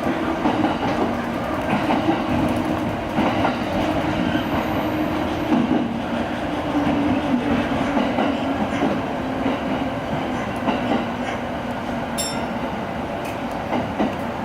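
Electric commuter train running on rails and slowing for its stop, with wheels clicking over the rail joints and a low hum that drops slightly in pitch.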